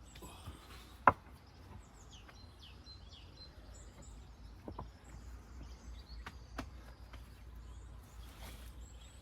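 Small birds chirping with short, falling calls, over a low steady hum. About a second in there is one sharp knock of stone on stone, with two fainter knocks later, as stones are set into a dry stone wall.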